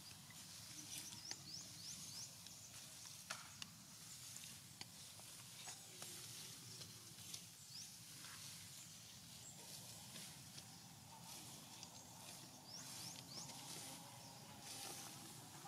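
Near silence: faint outdoor ambience with a few short high chirps and occasional light clicks over a soft hiss.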